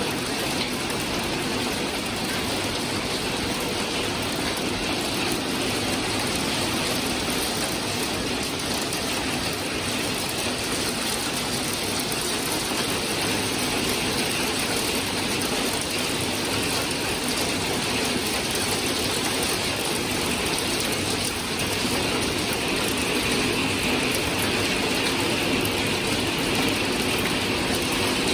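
Hail mixed with rain pelting a balcony deck, its potted plants and a glass door in a short squall: a steady, dense shower of strikes, a little heavier over the last few seconds.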